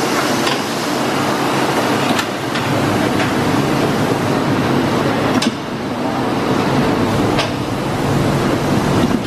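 Tromp/Autobake cupcake, muffin and cookie production line running, a steady mechanical din of conveyors and machinery with a few sharp clacks at uneven intervals as baking trays move along.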